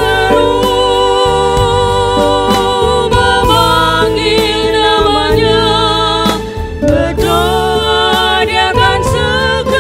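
Two women singing an Indonesian worship song in unison through microphones, their voices held on long notes with vibrato, over a steady accompaniment of sustained low notes.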